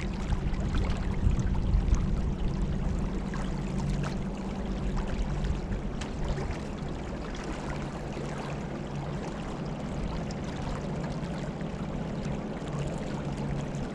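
Water trickling and splashing against a moving kayak, over a steady low hum.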